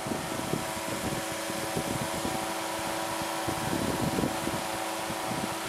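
Powered parachute's engine and propeller running steadily in cruise flight, a constant drone with a rough rush of air over it.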